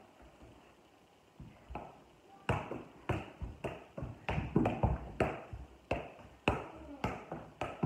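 A soccer ball being juggled with bare feet: a run of sharp thuds, about two a second, starting about two seconds in.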